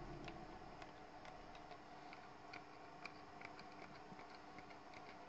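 Near silence with faint, irregular small ticks and clicks: fingers handling thin braided fishing line and a metal hook while tying a knot.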